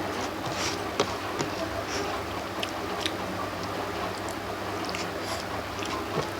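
A person eating a meal of rice and fish curry: wet chewing and mouth smacks with scattered small clicks, over a steady low hum.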